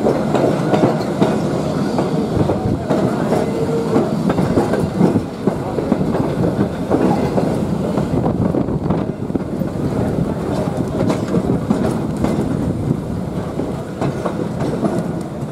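A passenger rail car rolling along at low speed, heard from on board: a steady rumble with the wheels clicking over rail joints.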